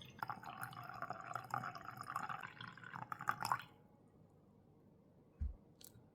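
Liquid pouring steadily for about three and a half seconds, then stopping; a soft low thump and a light click follow.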